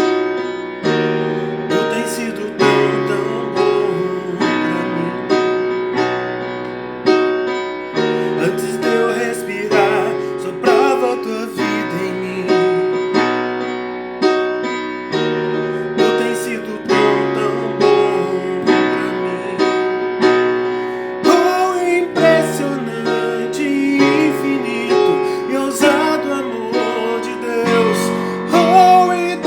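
Electronic keyboard playing held chords that change every second or two, with a wavering melody line over them.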